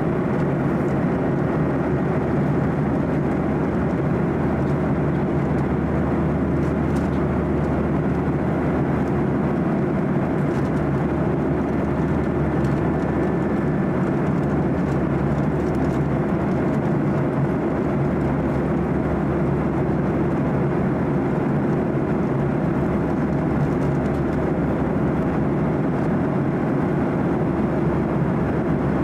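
Steady cabin noise of a Boeing 737-800 in flight, heard from inside the cabin: an even rumble and rush of its CFM56 turbofan engines and airflow, with no change in level.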